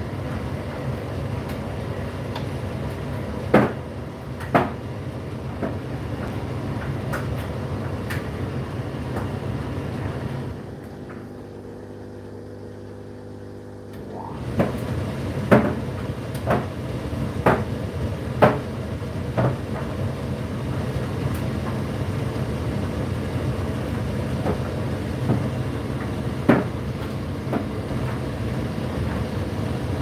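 Indesit IDC8T3 condenser tumble dryer running with a steady motor and drum hum and occasional sharp knocks. About ten seconds in, the running drops quieter for about four seconds, then picks back up.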